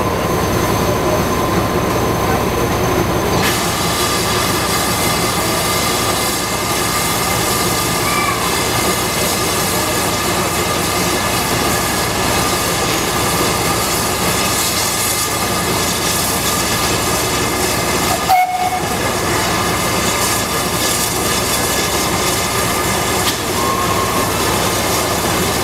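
Steam locomotive No. 9351 in steam, giving a steady, even hiss with faint steady tones while it is slowly turned on a turntable. The sound drops out briefly about eighteen seconds in.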